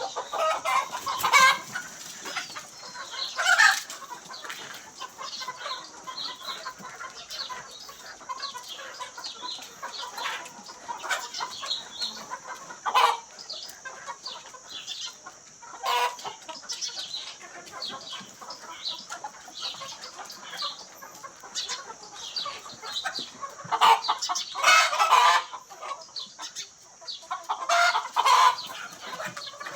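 A flock of Sonali chickens clucking continuously, with louder bursts of squawking now and then.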